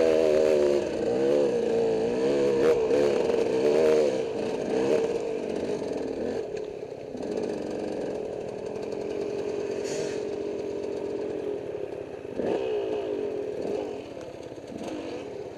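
Dirt bike engine revving up and down quickly under load on a steep hill climb, then running steadier and quieter, with one sharp rev about twelve seconds in.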